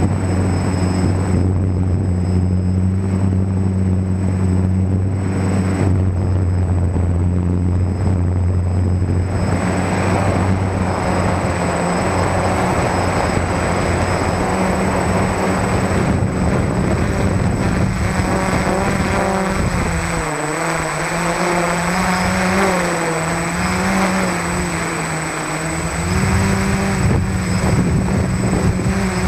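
Hum and whir of an F450 quadcopter's four SunnySky 980KV brushless motors spinning 10-inch props in flight, close to the onboard camera's microphone. The pitch holds steady at first, then wavers up and down from about 18 seconds in as the motor speeds keep adjusting.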